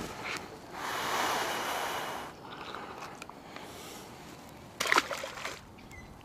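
Water splashing as a small bass is handled and released over the side of a boat, with a noisy wash early on and one short, sharp splash about five seconds in.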